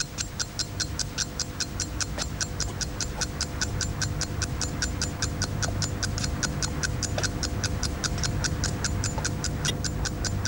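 Rapid, perfectly regular clicking, about six ticks a second, over a low hum and a faint steady tone.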